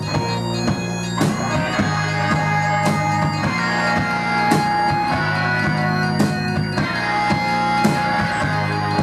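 Live band playing an instrumental rock passage: trumpet held over sustained keyboard chords, electric guitars, bass and drums, with a cymbal crash about every second and a half.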